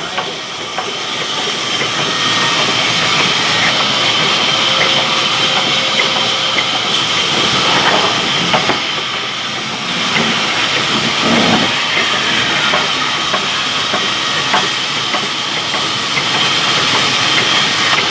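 Sawmill saw machine running with a loud, steady hiss as the blade cuts through wood.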